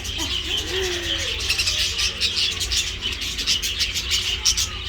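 A crowded flock of small birds chattering and chirping at once in a dense, rapid din, over a steady low rumble.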